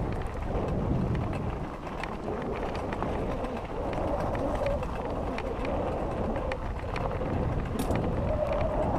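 Mountain bike rolling over loose gravel: tyres crunching, with scattered small clicks and rattles.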